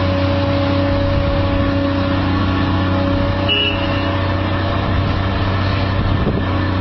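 A heavy machine's engine running steadily at an unchanging pitch, with a short high squeak about halfway through.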